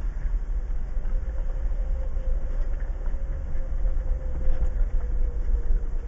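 2015 Jeep Wrangler Unlimited Rubicon's 3.6-litre V6 running low and steady as the Jeep crawls at walking pace over a rough dirt trail, heard from inside the cabin, with a faint steady whine above the rumble.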